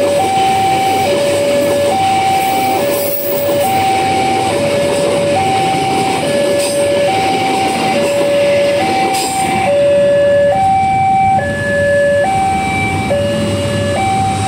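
Railway level-crossing warning alarm sounding a steady two-tone high-low signal, each tone lasting about a second, repeating without a break. Under it runs the rumble of a train moving off along the tracks, with a few sharp clicks.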